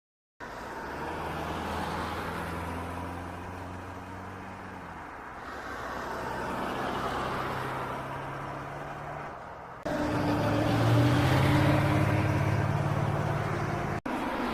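Heavy vehicle engine running steadily, with an abrupt cut about ten seconds in to a louder engine that revs up briefly and then holds.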